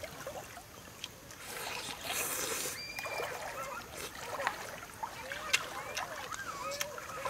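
A cooked shrimp being peeled by hand, its shell crackling and tearing with a few sharp snaps, and eating noises.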